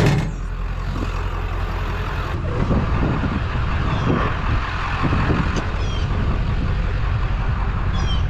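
Vehicle driving: a steady low engine and road rumble, with a few faint, short, high chirps.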